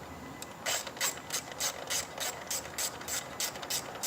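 Hand ratchet wrench clicking in a steady run, about three clicks a second, as a bolt is turned.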